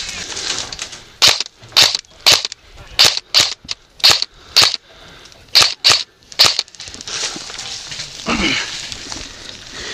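Airsoft electric gun of the HK MP5 type fired in single shots: about ten sharp cracks at an uneven pace over some five seconds.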